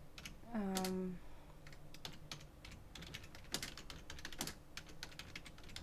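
Typing on a computer keyboard: irregular, fairly quiet key clicks. About half a second in, a short hummed "mm" from a voice, falling slightly and then held.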